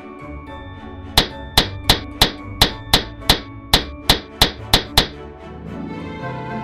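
Hammer tapping, a dozen quick sharp blows at about three a second, over soft background music.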